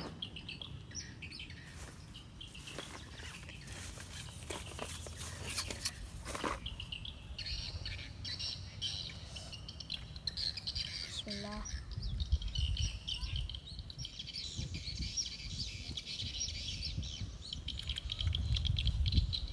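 Small birds chirping and twittering continuously from about a third of the way in, over a low wind rumble on the microphone that swells twice. A few soft clicks come early on.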